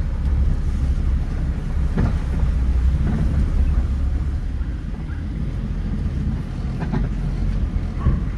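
A 2006 Honda Fit's 1.3-litre L13 four-cylinder engine running with a steady low rumble and a few light clicks. The computer is still relearning after a coolant temperature sensor fault, having taken every start for a cold start.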